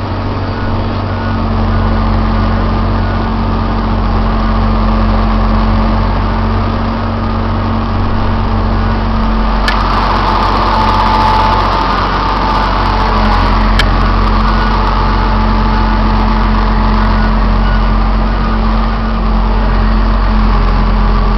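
Caterpillar haul truck's diesel engine running steadily, heard from inside the cab, with two sharp knocks about ten and fourteen seconds in.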